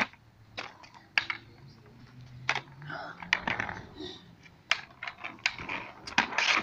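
Skateboards clacking and knocking on a concrete path: about ten sharp knocks of decks and wheels scattered through, with children's voices faintly in between.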